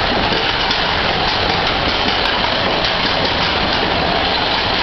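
Matterhorn Bobsleds roller coaster car running along its track: a steady rumble and rush of noise.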